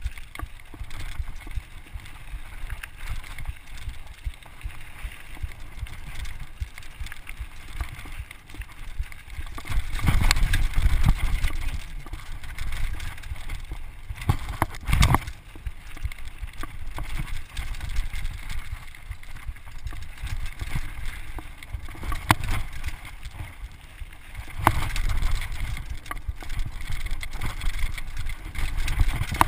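Mountain bike rolling fast down a rocky gravel singletrack: wind buffeting a GoPro's microphone over the rattle and crunch of the tyres, with a few sharp knocks as the bike hits rocks. The wind rush swells about a third of the way in and again near the end.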